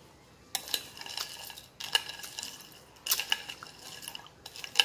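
Metal spoon stirring and scooping through ice and jelly in an iced dessert in a glass bowl, clinking against the ice and the glass in several spells starting about half a second in.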